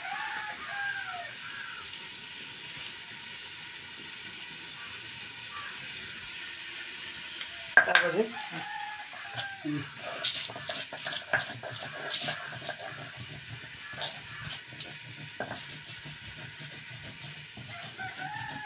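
Stone roller crushing and scraping dried red chillies and garlic on a flat grinding stone (silauta), a run of rough crunching strokes from about ten seconds in. Earlier a chicken calls a few times, and there is one sharp knock about eight seconds in.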